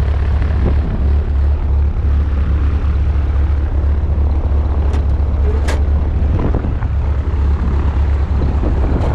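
Single-engine light aircraft's piston engine and propeller idling on the ground: a loud, steady low drone. A couple of short clicks come about five seconds in.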